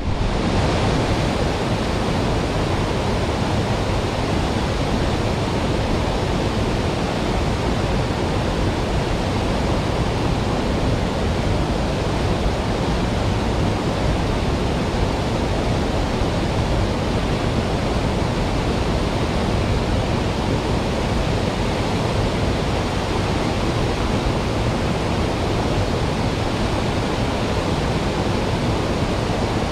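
Fast water of a mountain stream rushing, a loud, steady, unbroken noise.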